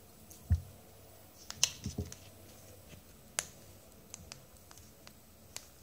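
Plastic clicks and knocks as the blue cap and black body of a UV-light liquid plastic repair pen are handled and fitted together. A soft thud about half a second in, a cluster of knocks and clicks around two seconds, one sharp click a little later, then a few faint ticks.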